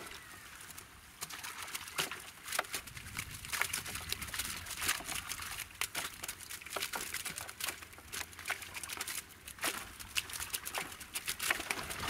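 A heap of freshly netted prawns being sorted by hand on a cast net: wet rustling, with irregular crackling clicks throughout.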